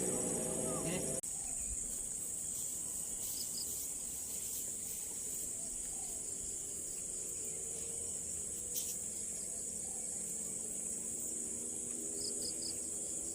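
Steady high-pitched chorus of insects chirring in the rice-field surroundings. A low hum with several tones cuts off suddenly about a second in, and a single sharp click sounds near the end.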